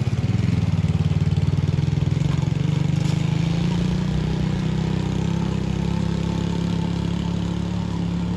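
Small motor scooter's engine pulling away under load up a steep climb. It swells as it sets off, then runs on steadily and slowly fades as the scooter rides away.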